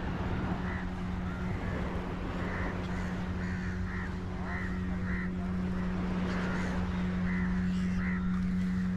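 Crows cawing over and over, many short calls in quick succession, over a steady low hum.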